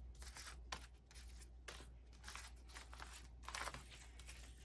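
Faint rustling of paper envelopes being flipped through and shuffled by hand: a scattered string of soft crinkles.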